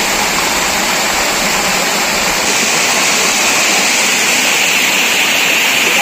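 Waterfall, a steady, loud rush of falling water.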